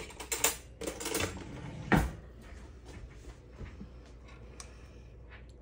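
Kitchen clatter: a few clicks and knocks, the loudest about two seconds in, typical of a drawer and utensils being handled. After that come a few faint clicks as a silicone spatula stirs thick cheesy orzo in a metal saucepan.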